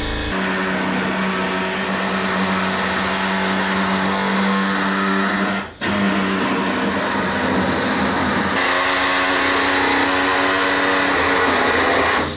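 Handheld pneumatic body saw running steadily with a buzzing tone as it cuts car body sheet metal; it drops out briefly about six seconds in.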